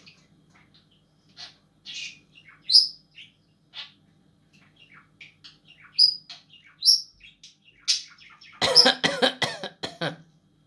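Budgerigar chirping and twittering in short high calls, then near the end a louder rasping burst of cough-like sounds, which the owner takes for the budgie coughing. A faint low hum runs underneath.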